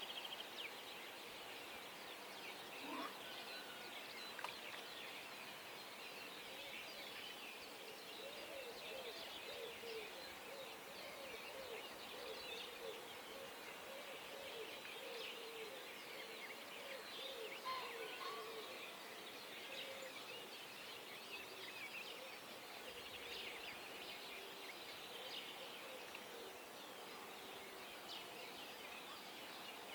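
Dawn chorus: many birds singing at once in a dense, high chirping, with a lower chorus of short, rapidly repeated calls that is strongest through the middle.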